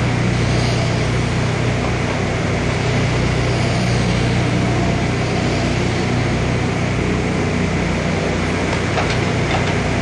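Bobcat 329G mini excavator's diesel engine running steadily with a strong low hum, with a few light clicks near the end.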